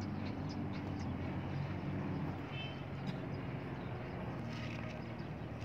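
A motor vehicle engine running steadily, a low drone that wavers slightly in pitch.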